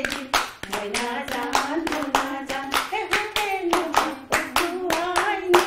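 A group of women singing together while clapping their hands in a steady rhythm, about four claps a second.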